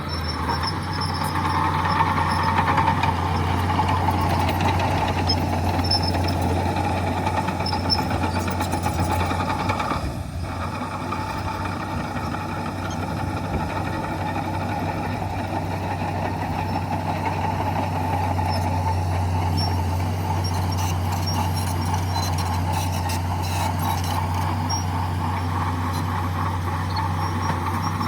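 Diesel engine of heavy earthmoving machinery running steadily with a deep drone, dipping briefly about ten seconds in.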